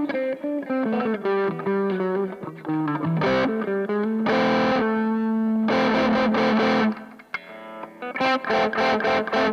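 Electric guitar played through a BOSS OD-2 Turbo Overdrive pedal, overdriven: a single-note line, then held and strummed chords, with a short pause about three-quarters of the way through and choppy chords near the end.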